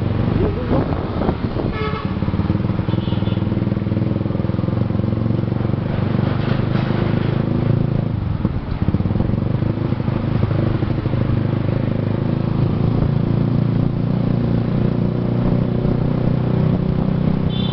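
Motorcycle engine running steadily while riding, with short horn toots about two and three seconds in and again near the end.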